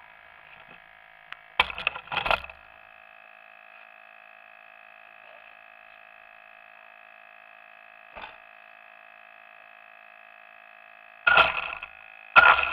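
Sound picked up by a small camera riding on a radio-controlled car: a steady, thin electronic whine, broken by short crackling rattles about two seconds in, once faintly around eight seconds, and twice near the end.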